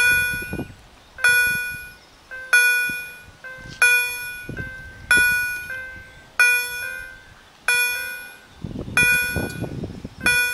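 Level-crossing warning bell striking evenly about once every 1.3 seconds, each strike a ringing metallic tone that dies away, sounding the warning of an approaching train. A low rumbling noise joins near the end.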